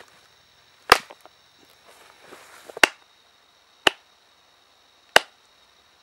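Four sharp knapping strikes on a flint core, spaced about one to two seconds apart, with a brief rustle just before the second.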